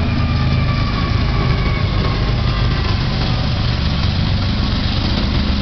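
BNSF diesel-electric locomotives working as distributed power units in a double-stack intermodal train, passing and pulling away: a steady, loud, heavy engine rumble with a faint whine that falls in pitch over the first few seconds.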